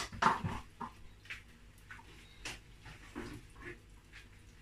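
Kitchen handling noises: a sharp knock just after the start, then a few lighter clicks and rustles as vegetables are lifted off the top of a microwave.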